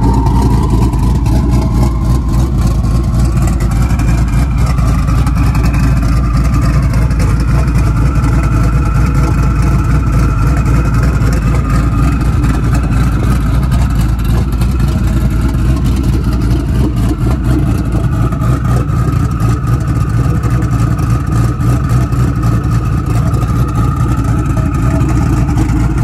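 Twin-turbo 5.0 Coyote V8 of a 2018 Mustang GT idling steadily on a ghost cam tune: a raised idle with a deliberate choppy lope programmed into the engine computer, not a real camshaft.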